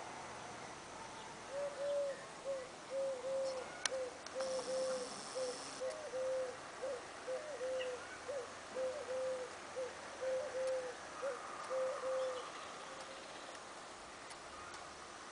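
A bird calling: a series of about twenty short whistled notes at one pitch, roughly two a second, some ending in a quick upward flick, stopping about twelve seconds in.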